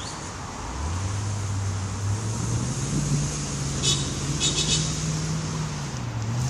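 Road traffic passing on the street, with a truck's engine rising in pitch as it accelerates about a second in, holding steady, then easing off near the end.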